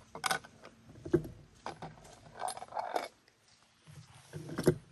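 Clicks, knocks and a short scrape of a compact canister camp stove's metal cooking cup and parts being handled and fitted together on a wooden picnic table, with the loudest knock near the end.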